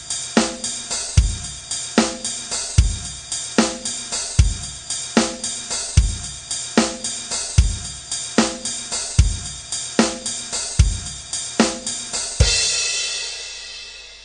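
Background music with a drum kit playing a steady beat. About twelve seconds in it ends on one hit that rings and fades away.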